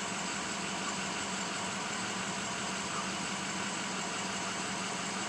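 A car engine idling steadily, heard from inside the cabin as a low, even hum.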